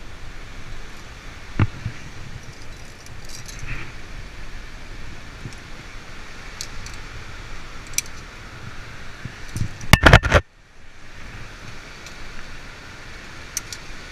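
Metal climbing gear clinking: aluminium carabiners and quickdraws jangling as a quickdraw is handled and clipped, with scattered clicks and a burst of loud knocks and rattles about ten seconds in.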